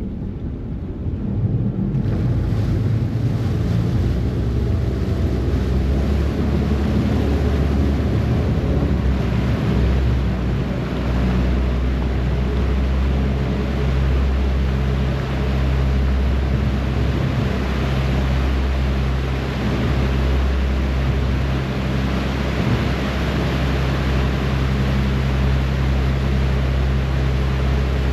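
Harbour ferry's diesel engines droning steadily at a low pitch, with the wash of its wake churning behind the stern. The engine note grows stronger about ten seconds in.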